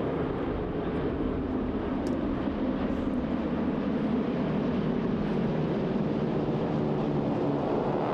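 A formation of North American T-6 Texan, Harvard and SNJ trainers flying past, their Pratt & Whitney R-1340 Wasp nine-cylinder radial engines and propellers sounding steadily together.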